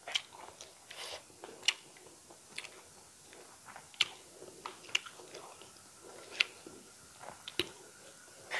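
Close-miked chewing of a mouthful of rice and eel curry, with sharp, wet mouth smacks coming irregularly, about one a second.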